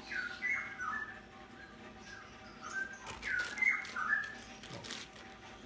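A songbird singing the same short phrase of chirps and downward-gliding whistles twice, a couple of seconds apart. A plastic bag crinkles as it is handled around the second phrase.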